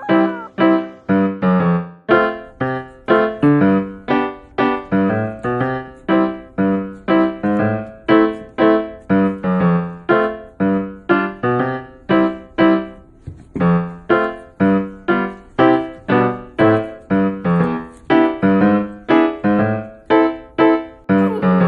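Background piano music: a steady run of evenly spaced keyboard notes, about two a second.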